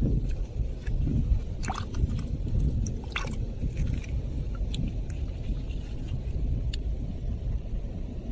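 A shell being lifted out of a shallow tide pool by gloved hands: small splashes and clicks of shell and stone, the two clearest about two and three seconds in, over a steady low rumble.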